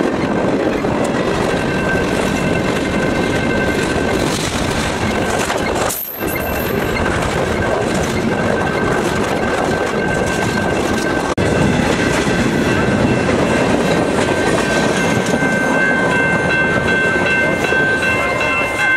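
Freight train of tank cars and boxcars rolling past close by: a loud, steady rumble and clatter of steel wheels on the rails, with thin, steady high-pitched tones running through it.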